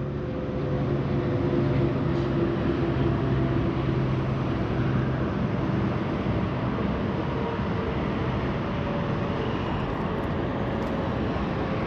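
Steady drone of a distant engine, with a low hum that eases off about halfway through.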